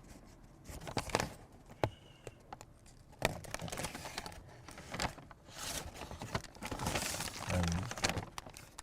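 Food packaging being handled: crinkling and rustling with scattered light clicks and knocks.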